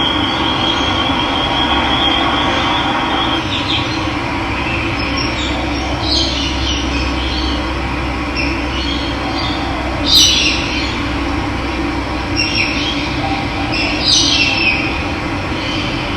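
Steady rush of running water with wild birds calling over it: a high steady trill for the first few seconds, then several short, downward-sweeping calls, the loudest about ten seconds in.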